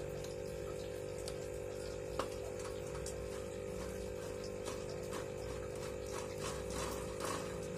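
Light plastic clicks and taps as a plastic hamster wheel is fitted onto the wire bars of a cage, one sharper click about two seconds in and a run of small taps near the end, over a steady hum.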